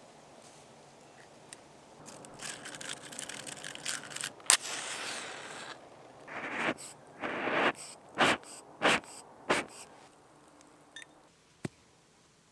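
A wooden match scraped and struck with a sharp snap, flaring with a hiss, followed by several rushing, whooshing bursts.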